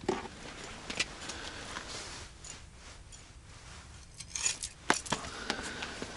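Handling noises from someone moving on the ice: rustling of winter clothing, with a few sharp clicks and knocks, one about a second in and a cluster of them near the end.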